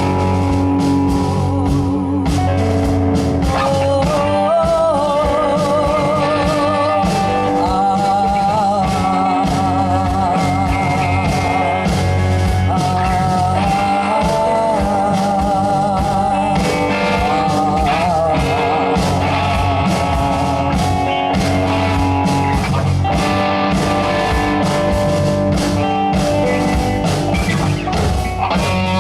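Rock band playing live with electric guitar, bass and drums. A singing voice with a wide vibrato holds long notes from about four seconds in until about twenty seconds.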